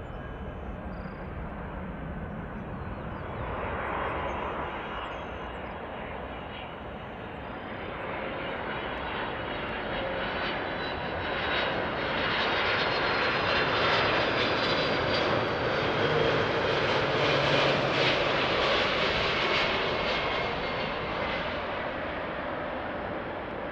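Jet engines of a Boeing 767 freighter on final approach: a steady rush with a faint high whine. It grows louder as the aircraft passes closest, then eases off near the end as it flares over the runway.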